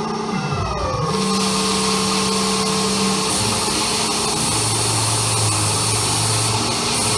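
Experimental noise music: a dense wall of hiss over held low drones. Early on a tone slides downward and settles into a steady pitch, and a second, lower drone comes in about halfway through.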